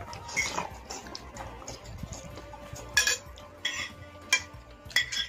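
Metal spoons and forks clinking and scraping against bowls while two people eat. About five sharp clinks come in the second half.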